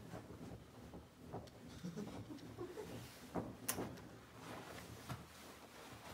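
Faint rustling and a few sharp clicks and knocks of a hammock strap and its metal anchor hardware being handled, the loudest click a little past halfway.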